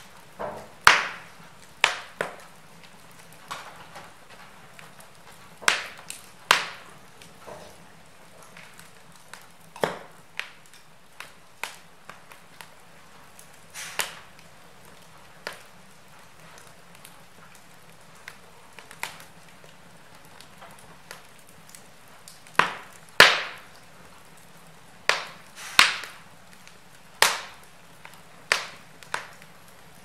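Wood fire burning in an open fireplace: logs crackling and popping in sharp, irregular snaps over a faint steady hiss, with the loudest pops about a second in and in the last third.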